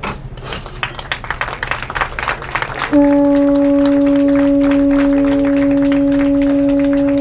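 Conch shell trumpet (Hawaiian pū) blown in one long, steady, low note that starts suddenly about three seconds in. Before it, a few seconds of rapid irregular clattering.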